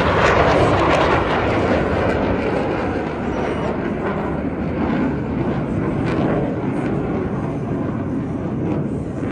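Aircraft engine noise from a plane flying past at an air show. It is loudest about half a second in, then drops in pitch and slowly fades as the aircraft moves away.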